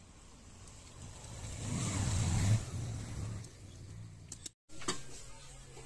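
A motor vehicle passing by: its engine noise swells to a peak about two and a half seconds in, then fades away.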